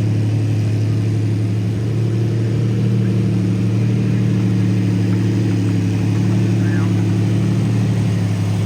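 Off-road vehicle's engine running steadily at low, even revs while crawling over rough trail, its pitch holding level throughout.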